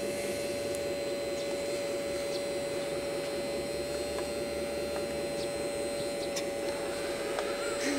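Steady electric hum of radio-controlled scale models running, one constant mid-pitched tone over a rough buzz, with a few faint ticks.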